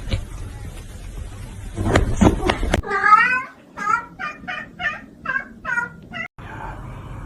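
A cat meowing: one loud meow, then a quick run of about seven short meows, two or three a second, that stops abruptly. A few knocks come just before the first meow.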